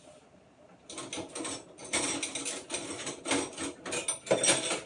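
Containers being handled and moved, a dense, irregular run of rattling and clicking that starts about a second in, as jars of fermented tofu are picked out and sorted.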